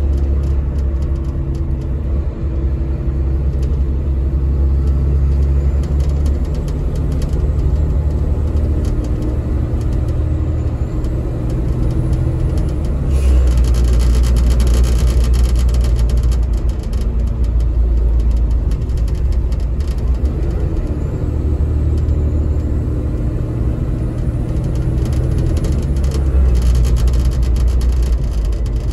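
Caterpillar-engined Denning Phoenix low-floor bus heard from the passenger cabin while under way, its engine droning low and rising and easing off in turns as the bus accelerates and slows in traffic. A hiss joins in for a few seconds about halfway.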